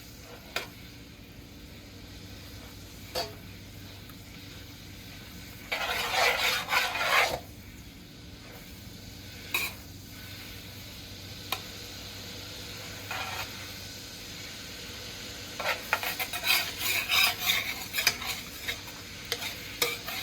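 A spoon stirring and scraping against a pot on the stovetop: a short bout about six seconds in and a busier run of clinks and scrapes over the last few seconds, with a few single clinks between, over a steady low hum.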